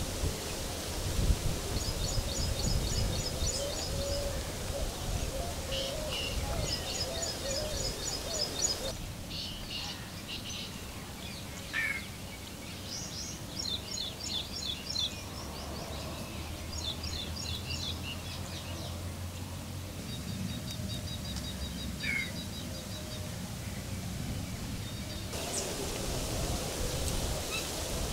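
Birds singing outdoors: short, quick trills of high notes, repeated every few seconds, over a low steady background rumble. The background drops abruptly about nine seconds in and comes back near the end.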